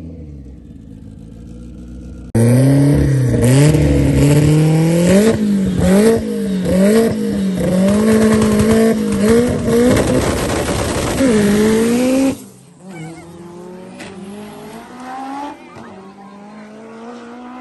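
Race car engine revving hard and loud, its pitch rising and falling over and over for about ten seconds. It starts suddenly a couple of seconds in and cuts off abruptly, leaving a fainter engine accelerating.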